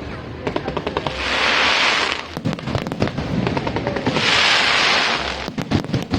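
Aerial fireworks: a dense run of rapid crackling pops throughout, with two hissing rushes of about a second each, one about a second in and one about four seconds in.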